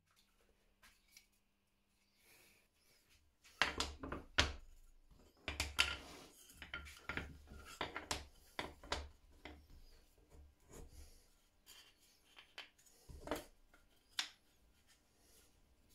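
Small plywood pieces handled on a wooden worktop: a run of light wooden knocks and rubbing as they are set down, slid and picked up, then two more knocks near the end as two pieces are fitted together.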